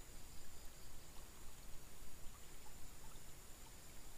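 Faint outdoor creek ambience: a steady hiss of slow-moving water, with a thin steady high tone running through it.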